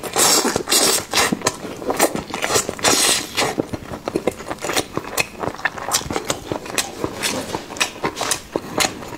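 Close-miked chewing of a mouthful of braised chicken drumstick: irregular wet clicks and smacks of the mouth and teeth, many in quick succession.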